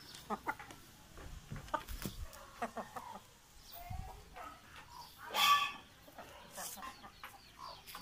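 Aseel chickens clucking in a string of short calls, with one louder, longer squawk about five and a half seconds in.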